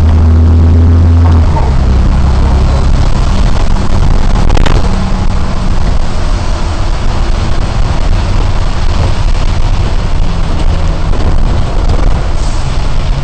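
Non-air-conditioned double-decker bus engine running under way, heard from inside the bus, its low drone strongest for the first second and a half and then easing, over a steady hiss of tyres on the wet road and rain. A single short tick sounds about four and a half seconds in.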